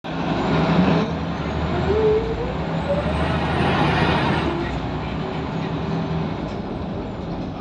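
Scania L94UB single-decker bus heard from inside the saloon while on the move: its rear-mounted diesel engine running steadily, with a whine that rises in pitch for a couple of seconds as the bus picks up speed.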